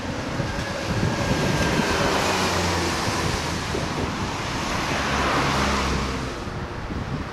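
A motor vehicle passing close by, its noise swelling from about a second in and fading near the end, over the steady rush of the river in flood.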